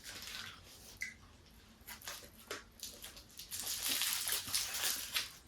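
Close-miked chewing and wet mouth sounds of someone eating a peri peri chicken shawarma roll: quick, irregular smacks and squelches, busiest about three and a half seconds in.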